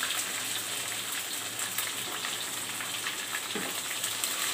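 Chopped onions sizzling in hot oil in a nonstick kadai, a steady frying hiss with faint crackles, stirred with a wooden spatula as they start to sauté.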